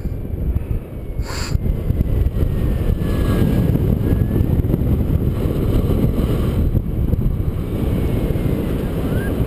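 Wind rushing over the camera microphone during paraglider flight: a steady, loud, low rumble. A brief rustle comes about a second and a half in.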